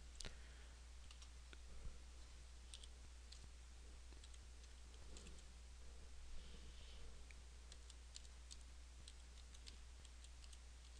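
Faint computer keyboard keystrokes at a slow, uneven pace, about one key a second, over a low steady hum.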